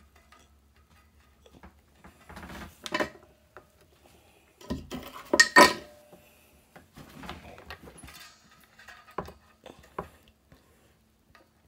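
Scattered light metallic clinks and taps from tools and metal parts being handled while a ground wire is wedged and soldered onto the guitar's tremolo claw, with the loudest cluster about five and a half seconds in.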